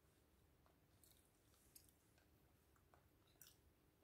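Near silence with faint, soft chewing of a sticky glutinous rice cake and a few small wet mouth clicks.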